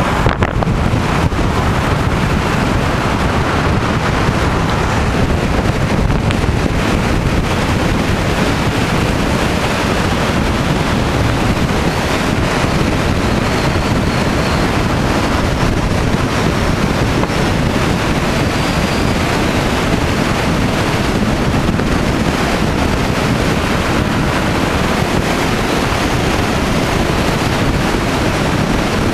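Loud, steady wind rushing over the microphone of a camera in a moving road vehicle, mixed with the vehicle's road and engine noise.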